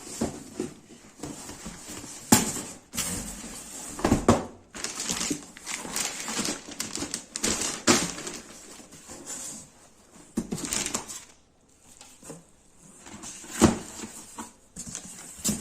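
Shoes and packaging being handled: irregular rustling with scattered knocks and taps, the sharpest about two seconds in, near eight seconds and near fourteen seconds.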